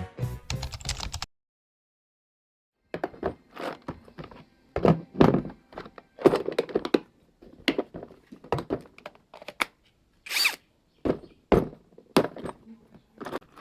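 Irregular knocks and clunks of a rusty hammer and tools being handled and knocked on a hard work surface, with one short hiss about ten seconds in. Intro music ends about a second in.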